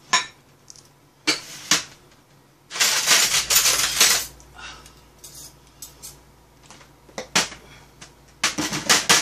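Tableware clinking and clattering as dishes, a pot and metal utensils are moved and knocked on a metal serving tray: single sharp clinks, a longer clatter about three seconds in, and a quick run of clinks near the end.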